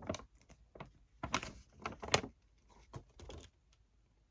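Handling noise from a movie disc case and its folded paper poster: four or five short clicks and rustles spread over a few seconds.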